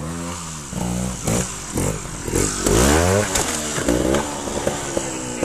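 Trials motorcycle engine revving in short, repeated throttle blips, the pitch rising and falling again and again, loudest in the middle, as the bike climbs onto a large boulder. A few sharp knocks sound among the revs.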